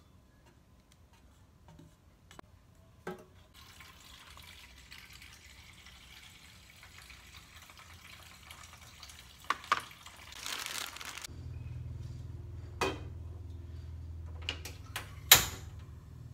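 Water running from a tap for several seconds, then the low steady rush of a gas stove burner under a pot, with a few knocks and one sharp clank of cookware near the end.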